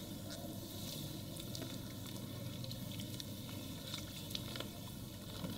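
Water from a hand-held sink sprayer running onto a lathered head in a basin, with wet hands rubbing the hair and scattered small wet clicks and crackles from the foam.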